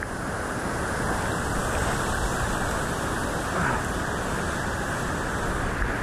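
Waterfall rushing steadily, a continuous roar of falling water.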